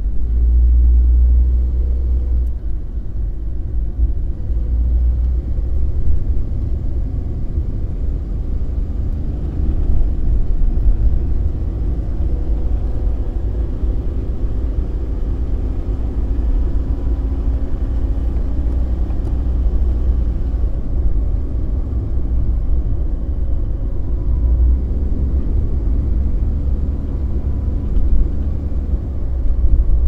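A car driving: a steady low rumble of engine and road noise, with faint engine tones that drift slightly up and down in pitch.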